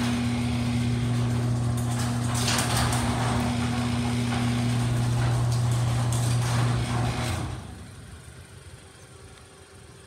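LiftMaster garage door opener motor running with a steady hum as it raises a sectional steel garage door, stopping about seven and a half seconds in when the door reaches the top.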